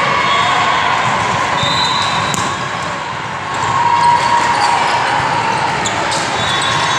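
Busy volleyball-hall din during a rally: volleyballs being struck and bouncing on the courts with a few sharp smacks, over a steady wash of players' and spectators' voices in a large hall.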